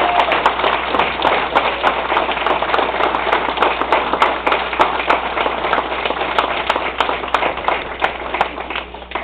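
Audience applause: a roomful of people clapping, dense and even, dying down near the end.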